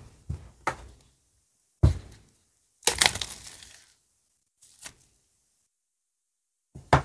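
Clear plastic shrink wrap crackling as it is torn and pulled off a small cardboard box, loudest for about a second around three seconds in. A few sharp knocks and taps of the box being handled come near the start, about two seconds in and near the end, with silence between.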